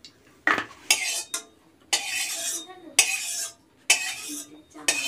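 Metal utensil scraping and clinking against a metal kadai (Indian wok) holding oil, in about seven separate strokes, some short and some drawn out for about half a second.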